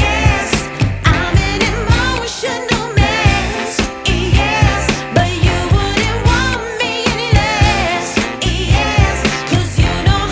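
Background music: a soul-pop song with a sung vocal over a steady beat and bass.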